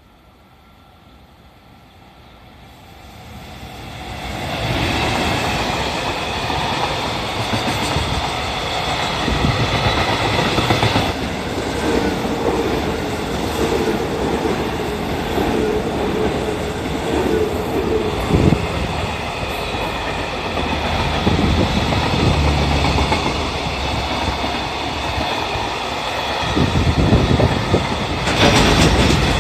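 A JR 313 series electric multiple unit and a JR Freight container train hauled by an EF210 electric locomotive run through a station on adjacent tracks, with the continuous rumble and clatter of wheels on rail. The noise builds from faint over the first few seconds. A steady whine runs through the middle, and the wheel beats over rail joints grow louder near the end as the container wagons pass.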